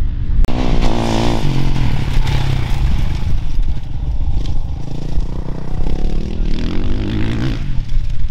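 Off-road dirt bike engines revving, their pitch rising and falling as the bikes ride across the course, over a steady low rumble. The sound changes abruptly about half a second in.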